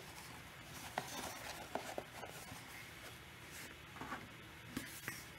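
Faint room tone with a few soft, isolated clicks and taps.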